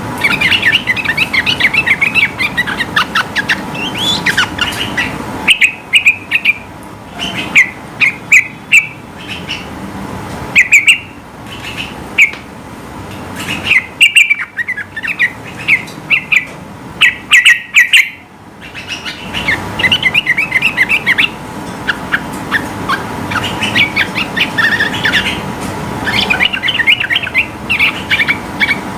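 Yellow-vented bulbul (trucukan) singing in long rapid runs of short chirping notes. The song breaks into separate short phrases with gaps in the middle, then runs on densely again. A faint steady hum lies underneath.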